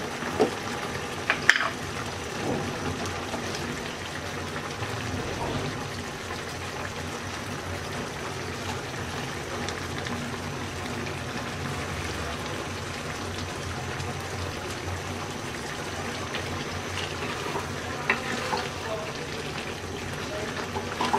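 A bottle gourd and prawn curry simmers in a wok over medium heat, with a steady bubbling and sizzling of the cooking liquid. A few sharp knocks of a utensil against the pan come about a second in and again near the end.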